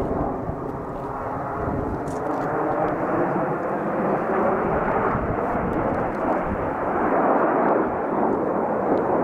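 Formation of Dassault/Dornier Alpha Jets passing overhead: the steady rushing jet noise of their twin turbofan engines, growing slowly louder as they pass.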